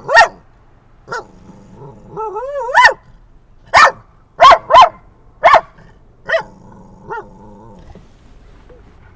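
Pet dog barking in sharp single barks, about nine of them over seven seconds, with a short wavering whine that rises into one bark; the dog is barking at other dogs it has been shown.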